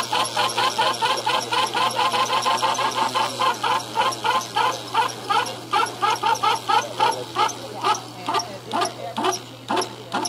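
Lure-coursing line pulley squeaking rhythmically as the lure line runs through it: quick, regular squeaks that slow and fade in the last few seconds as the lure slows.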